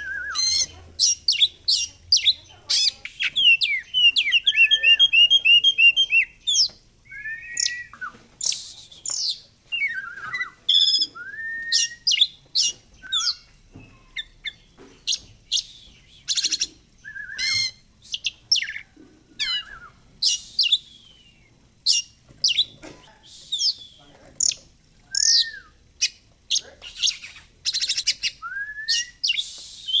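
Oriental magpie-robin (kacer) singing a varied song of sharp chirps, clear whistles and down-slurred notes, with a fast run of repeated notes lasting about two seconds near the start. This is the full song used as a lure (pancingan) to set other magpie-robins singing and fanning their tails.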